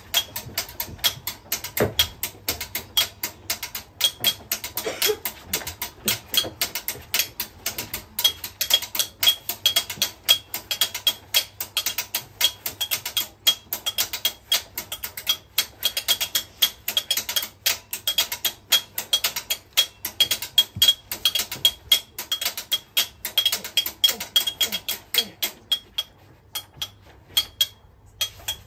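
A fast, uneven run of sharp knocks and clicks, several a second, which thins out about two seconds before the end.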